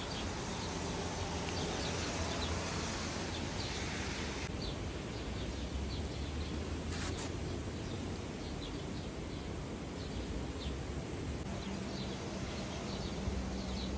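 Outdoor ambience: a steady wash of noise with small birds chirping briefly now and then.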